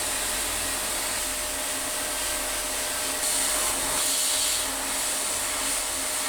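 Sandblaster running: a steady hiss of abrasive blasted against rusted metal parts of a hand-cranked potato peeler. It grows louder for about a second and a half in the middle.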